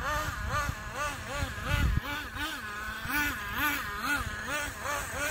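Traxxas Nitro 4-Tec RC car's small nitro engine revving up and falling back over and over, about twice a second, as the throttle is worked while drifting. A short low rumble comes about two seconds in.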